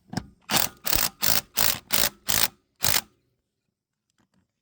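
Power impact wrench tightening a quad's wheel lug nuts, run in seven short, quick bursts.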